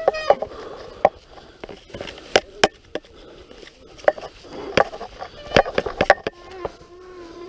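Mountain bike rattling and clattering over a rough forest trail, with irregular sharp knocks and clanks as it hits bumps. A wavering tone comes in near the end.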